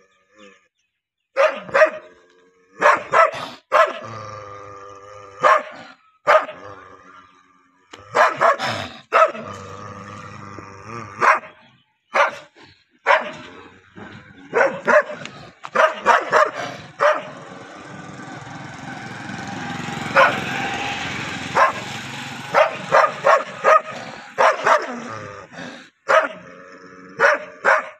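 Dog barking aggressively, sharp barks coming in quick clusters of two or three with short pauses between, and a longer unbroken stretch of sound a little past the middle.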